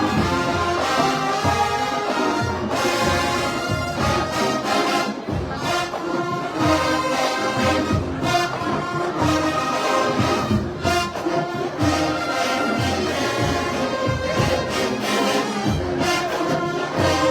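Marching band playing a brass-heavy tune over a steady drum beat.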